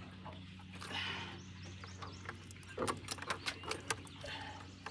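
Faint scattered knocks, scrapes and drips as a catfish is worked out of a plastic catfish can held over a basket, over a low steady hum.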